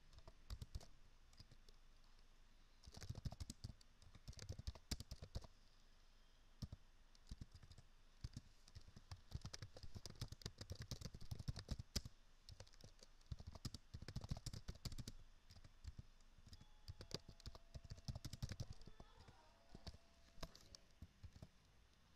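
Typing on a computer keyboard: faint, quick key clicks in bursts with short pauses between them.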